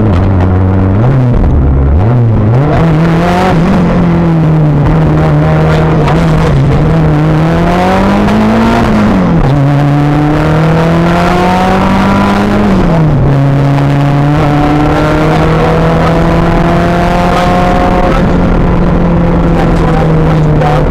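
Rally car engine heard from inside the cockpit, driven hard on a stage: the revs dip and pick up early on through a corner, then climb and fall sharply twice, about nine and thirteen seconds in, as the driver changes up, before holding fairly steady while slowly rising.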